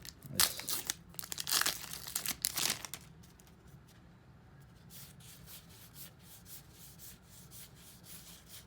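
A 2018 Topps Heritage baseball card pack wrapper being torn open and crinkled, loudest in the first three seconds, then softer rustling of the wrapper and cards.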